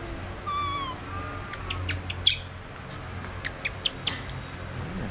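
Baby monkey giving a high-pitched, falling call about half a second in, followed by a fainter call and then a scatter of short, sharp high squeaks or clicks.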